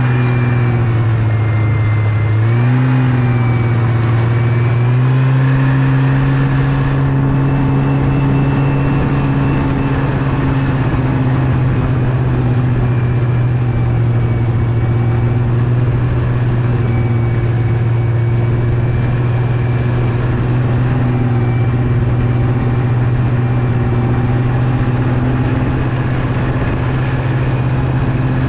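Yamaha Venture snowmobile engine running under way at a steady pace. Its pitch eases briefly about two seconds in, climbs back a few seconds later, then holds steady. A high hiss over it drops away about seven seconds in.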